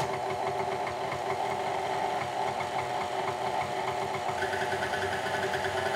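Electric stand mixer motor running at low speed, its flat beater creaming butter and powdered sugar in a steel bowl; a steady whine, with a higher tone joining about four seconds in.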